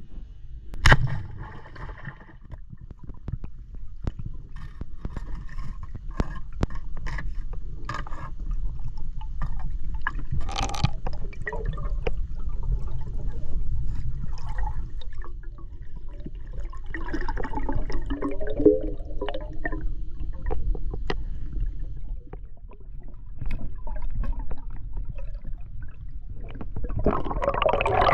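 Water gurgling and sloshing, with many sharp clicks and knocks scattered through it over a steady low rumble.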